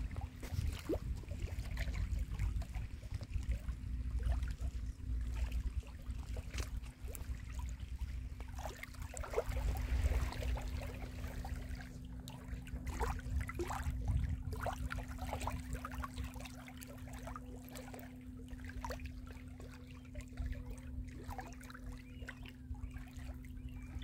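Small lake waves lapping and splashing at the shoreline, with irregular light drips and slaps.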